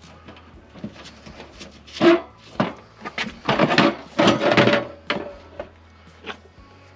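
Sheet-metal blower housing from a Lennox air handler being tipped over and set on its side on plywood: a knock about two seconds in, then a cluster of clunks and scraping, the loudest part, from about three and a half to five seconds in.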